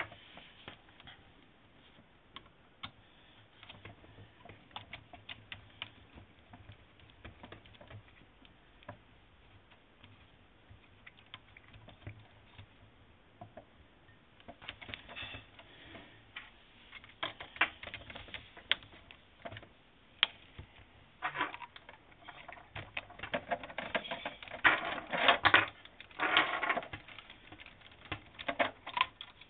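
Light clicking and tapping of a hex driver and small metal parts as screws are turned into the metal steering knuckle of a 1:8 scale RC buggy. The clicks are sparse at first, then come in denser, louder clusters from about halfway in.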